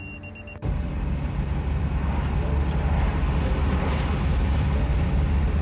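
Land Rover Defender driving at road speed: a steady low rumble of engine and road noise with wind noise, cutting in suddenly about half a second in.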